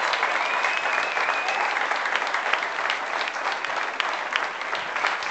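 A crowd applauding, many hands clapping, with a high held tone sounding over it for the first second and a half. The clapping thins slightly toward the end.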